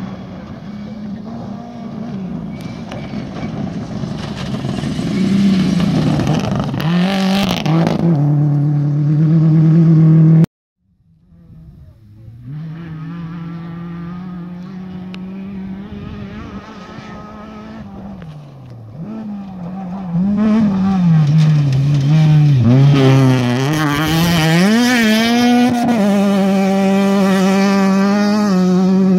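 Rally car engines on a gravel stage. A car revs hard through its gears as it approaches and grows louder, until the sound cuts off abruptly about ten seconds in. A second rally car then approaches and passes close, its engine pitch rising and dropping with gear shifts.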